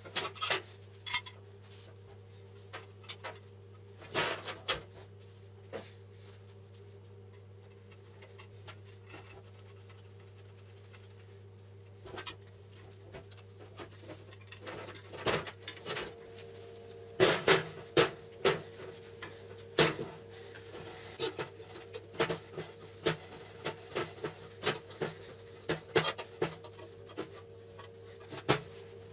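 Steel parts of a homemade drill vise handled and fitted together: scattered sharp clicks and clinks of metal on metal, sparse at first and coming thicker from about halfway on, over a steady low hum.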